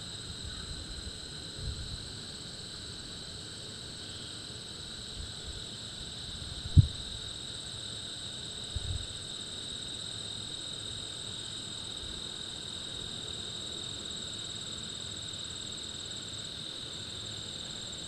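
Steady, high-pitched chorus of meadow insects. There are a few low thumps on the microphone, the sharpest about seven seconds in.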